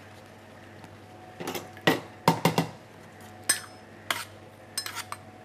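A metal utensil clinking and scraping against a stainless steel bowl while turning a ball of blood sausage in beaten egg. There are about ten irregular clinks, some ringing briefly, starting about a second and a half in.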